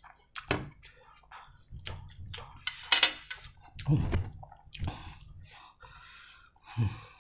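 Close-up wet mouth sounds of a person eating instant noodles: chewing, smacking and slurping in short irregular bursts, the loudest a hissy slurp about three seconds in.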